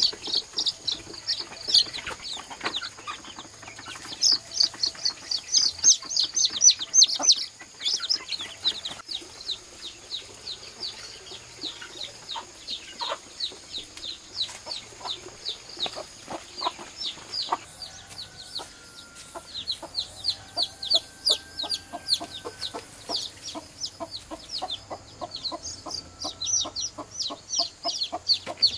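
Chickens calling: a dense run of quick, high peeps one after another, with some lower clucking calls past the middle.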